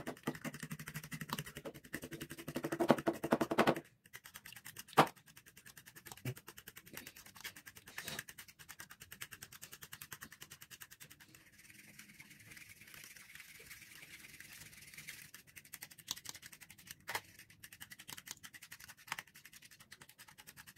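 A fork beating a raw egg in a paper bowl: a fast, continuous run of light ticks and scrapes, louder for the first few seconds, with a few sharper clicks of the fork against the bowl.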